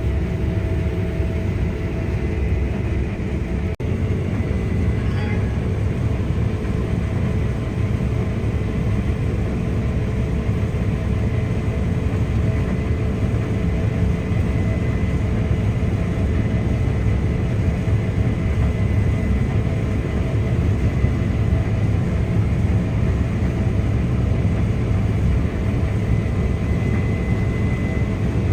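Case IH Axial-Flow 9250 combine harvester running steadily under load while harvesting wheat: a loud, even machinery drone with a thin high whine over it. The sound drops out for an instant about four seconds in.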